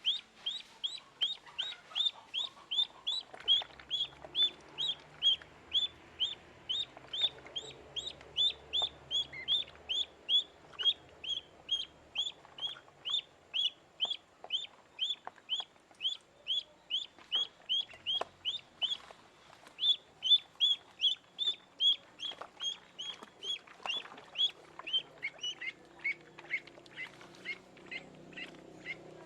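Ducklings peeping: a steady run of short, high, downward-sliding cheeps, about three a second, dropping somewhat lower in pitch near the end.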